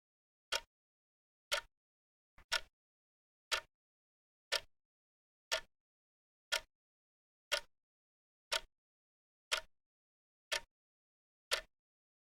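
Clock ticking, one sharp tick a second with silence between the ticks.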